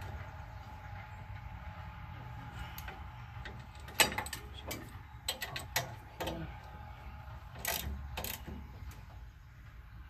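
Sharp metallic clicks of a socket wrench tightening the bolts at a rear drum brake backing plate in a crisscross sequence, with the loudest click about four seconds in and small clusters of clicks around five and eight seconds.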